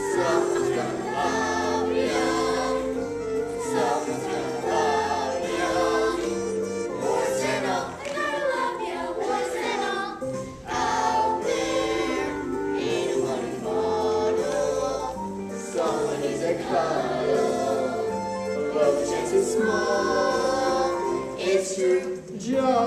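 A chorus of young voices singing together in a stage musical, over steady instrumental accompaniment.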